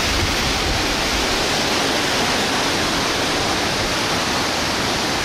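Waterfall about 55 metres high in strong flow, plunging water making a steady, even rushing noise.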